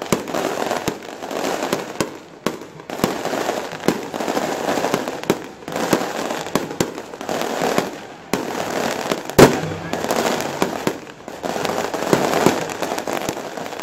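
Fireworks going off: a long, irregular run of sharp cracking bangs, the loudest single bang about nine and a half seconds in.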